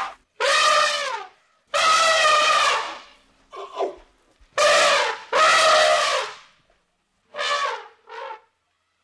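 An animal calling repeatedly with loud, drawn-out, pitched calls, about seven of them, each lasting up to about a second.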